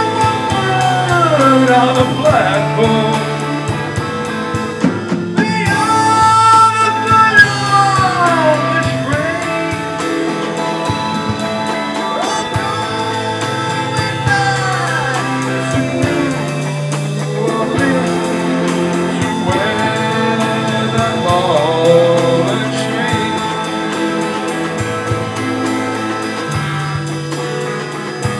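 A live rock band playing: a man singing into a microphone over electric guitar, acoustic guitar, keyboard and drum kit. The singing comes in phrases with sliding pitch, and the instruments continue between them.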